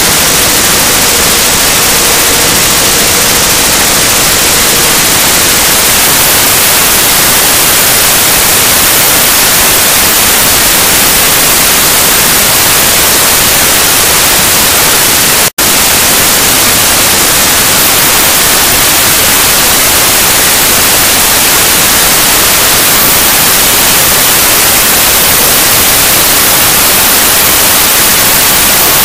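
KMG200 corn cob flour mill running and grinding corn cobs into powder: a loud, steady rushing noise with no distinct tone, cut off for an instant about halfway through.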